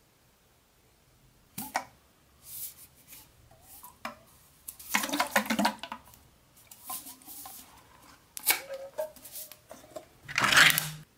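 Ring-pull metal food tin handled in the hands, with scattered clicks and scrapes against the metal. Near the end comes a louder tearing scrape as the ring-pull lid is pried up and peeled open.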